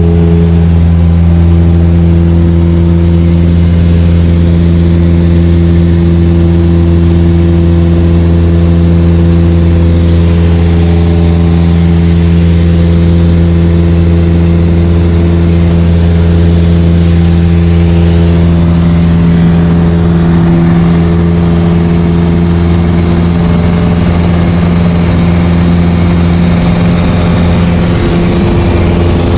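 Light aircraft's piston engine and propeller running steadily in cruise, a loud, even drone with no change in pitch.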